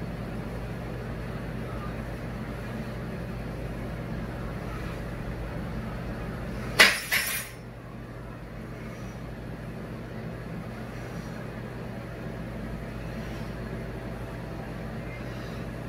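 Steady low background hum, broken once about seven seconds in by a brief, loud clatter with a second smaller knock right after it.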